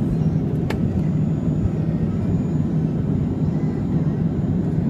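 Boeing 737-300's CFM56 jet engines heard inside the cabin over the wing: a steady low rumble as the airliner taxis onto the runway before the take-off roll. A single sharp click sounds about a second in.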